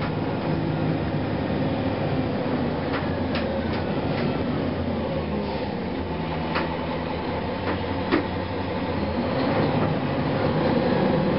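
Inside a 2004 Gillig Phantom transit bus under way: its Cummins ISM diesel engine running steadily under road noise, with a few sharp clicks and rattles from the cabin.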